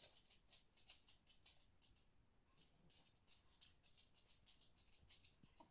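Faint, rapid, irregular scratching and rustling of Yorkshire terrier puppies' paws and claws on a fabric dog bed as they wrestle.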